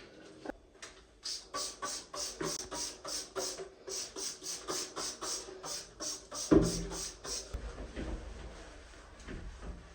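Bathroom cleaning: a fast, even run of short hissing strokes, about three a second, for several seconds, then a knock about six and a half seconds in, followed by a low rumble.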